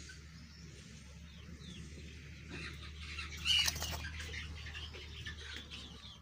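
Birds chirping in the background over a steady low hum, with one brief louder rustle a little past halfway.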